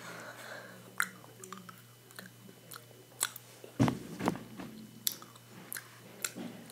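Close-up chewing of a chewy Lemonhead and Friends candy, with irregular short wet clicks of the mouth, and one louder thump about four seconds in.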